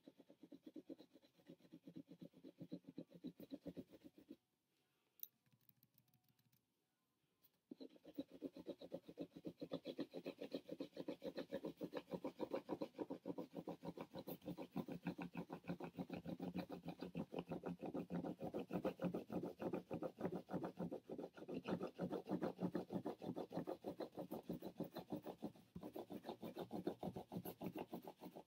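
Crayon rubbing quickly back and forth over paper laid on a cardboard leaf cutout, a fast run of scratchy strokes. It breaks off for about three seconds a few seconds in, then starts again louder.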